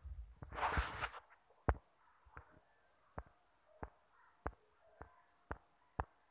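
A brief rustle, then a run of about eight light clicks, roughly one every two-thirds of a second and coming slightly faster near the end.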